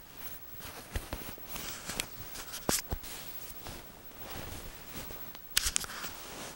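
Quilt and bedding rustling as the covers are moved about, with scattered soft clicks and two sharper swishes, one near the middle and one near the end.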